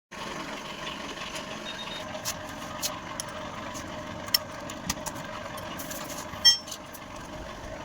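An engine runs steadily, broken by several sharp clicks and, about six and a half seconds in, a louder metallic clink that rings briefly.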